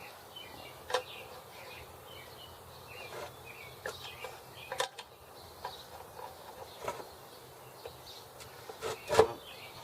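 Antique single-cylinder hit-and-miss farm engine running, with a faint steady hum and scattered sharp clicks and knocks, the loudest about nine seconds in.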